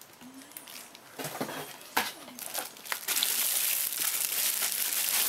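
Packaging crinkling and rustling as a camera body is unwrapped by hand: a few scattered handling clicks and one sharp click about two seconds in, then steady louder crinkling for the last two seconds.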